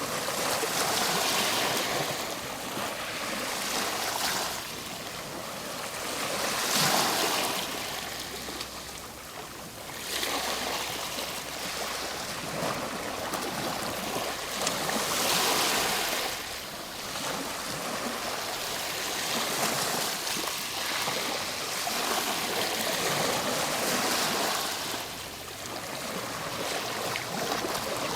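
Ocean waves breaking and washing up, a continuous surf hiss that swells and falls with each wave every several seconds.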